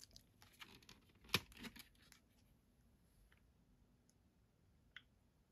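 Faint handling of compact discs in a clear plastic multi-disc case tray: soft clicks and rustles, with one sharper click about a second and a half in as a disc is pulled off the tray, and a small click near the end.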